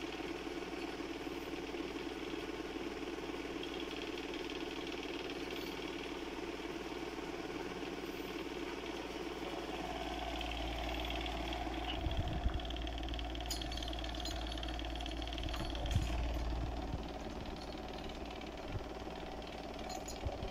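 A steady mechanical hum from a running motor, with a deeper rumble joining about halfway through and a few soft thumps in the second half.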